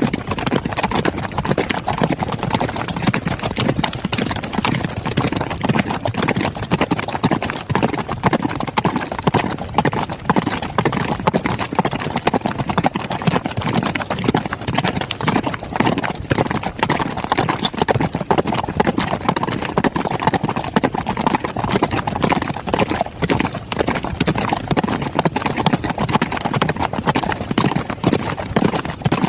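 Horses galloping: a rapid, continuous run of hoofbeats at an even loudness.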